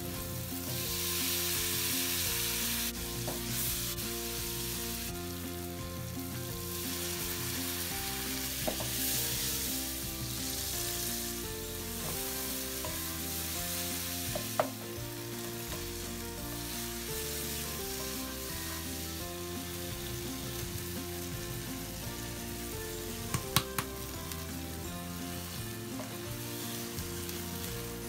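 Onions, spices and tomatoes frying and sizzling in oil in a nonstick wok while a wooden spatula stirs them. The spatula knocks sharply against the pan a few times.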